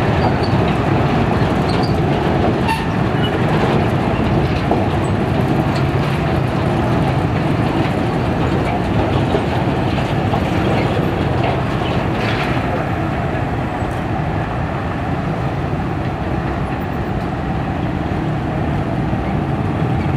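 Passenger train coaches rolling past on the rails, a steady, loud rolling noise of wheels on track that slowly fades as the last coach moves away.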